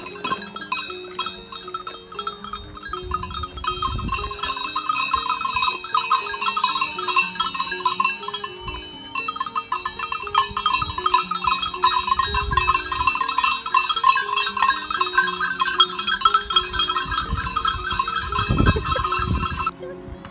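Many goat bells jangling and clanking together without a break as a herd of goats walks in a tight group, with a few dull low thumps among them. The bell sound cuts off abruptly near the end.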